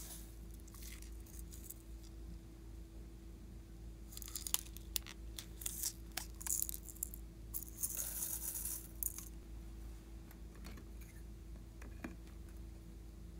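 Small plastic bottles of glitter and sequins being opened and shaken out over a bowl, with sharp clicks of caps and bottles and the flakes rattling as they pour, densest about eight seconds in. A faint steady hum underneath.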